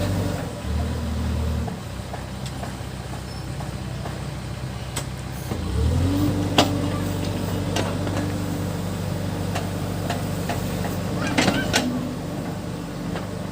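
Case backhoe loader's diesel engine running, briefly revving near the start and again about six seconds in, then holding at higher revs. Several sharp knocks and clanks are scattered through it.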